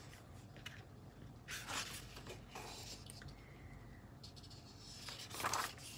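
Faint paper rustling as the pages of a paperback colouring book are turned and handled: a few brief swishes, the clearest about two seconds in and near the end.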